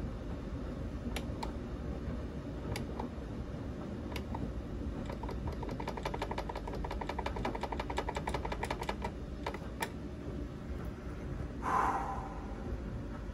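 Relays of a Sonoff 4CH Rev2 Wi-Fi smart switch clicking: a few single clicks, then a fast even run of clicks, about eight or nine a second, for some four seconds, then a few more single clicks, over a steady low hum; the switch is hanging. Near the end, a brief louder rustle.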